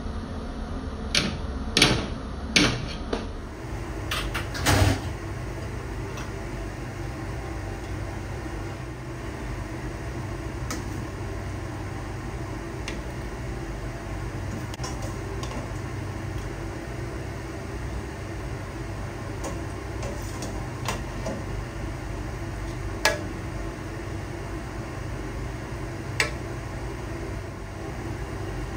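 Serving spoon knocking and scraping against the side of a large stainless steel cooking pot as rice and chicken are layered in, with a cluster of sharp knocks in the first few seconds and a few single ones later, over a steady low hum.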